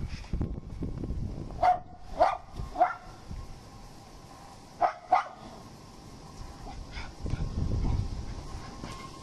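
Miniature schnauzer puppy barking: three short, sharp barks about two seconds in, then two more about five seconds in. Wind buffets the microphone with a low rumble at the start and again near the end.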